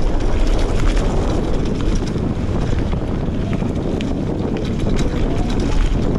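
Wind buffeting the microphone of an action camera on a mountain bike riding fast down a dirt forest trail, over the steady rumble of knobby tyres on the ground. Scattered clicks and rattles from the bike come through the noise.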